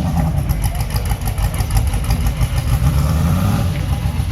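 Race car engine running at low revs, a deep uneven rumble.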